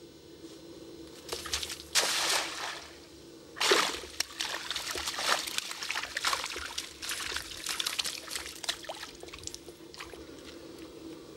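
A throw net (cast net) thrown into a shallow creek, with two loud splashes about two and three and a half seconds in, then water sloshing and dripping as the wet net is hauled out onto the mud.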